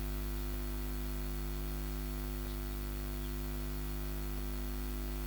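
Steady electrical mains hum with hiss from the sound system, with no voice over it.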